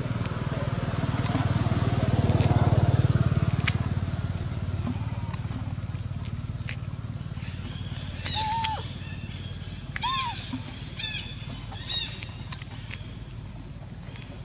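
A low engine rumble, like a passing motor vehicle, swells to its loudest about two to three seconds in and slowly fades. Later come four short, arched, squeaky animal calls, roughly a second apart.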